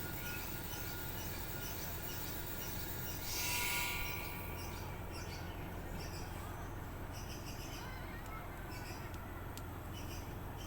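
Small bird chirping repeatedly, in short high calls, over a steady low hum, with a brief hiss about three seconds in.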